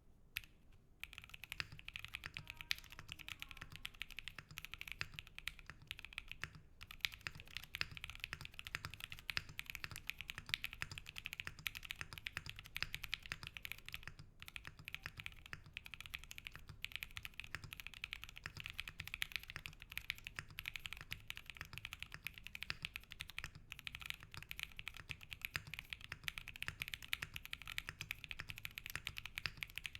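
Fast, continuous typing on a Metakey Tenet70 mechanical keyboard with an aluminium plate, lubed and filmed SP Star Meteor White switches and IV Works Kanketsu keycaps. The typing starts about a second in, with a few brief pauses.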